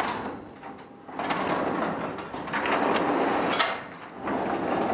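Overhead garage door rattling and rumbling as it moves along its tracks, with a few sharp clicks about three and a half seconds in.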